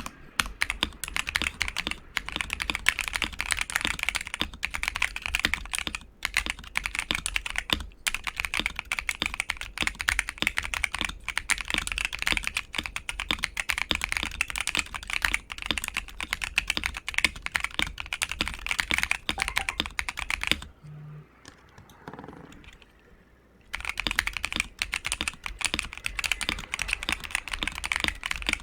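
Rapid, continuous typing on a modded ASUS ROG Azoth mechanical keyboard with ROG NX Red linear switches, a polycarbonate plate and added foam and PET film dampening layers. The keystrokes stop for about three seconds roughly two-thirds of the way through, then resume.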